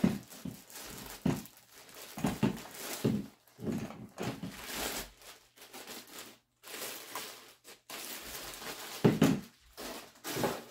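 Clear plastic packaging bag crinkling and rustling in irregular crackles as a bidet seat attachment is pulled out of it by hand. The loudest crackle comes about nine seconds in.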